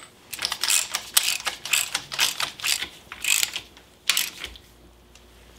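Ratchet wrench clicking in quick runs on the camshaft sprocket bolt of a Jeep 4.0 inline-six, turning the freshly installed cam to check that it spins freely in its bearings; the clicking stops about four seconds in.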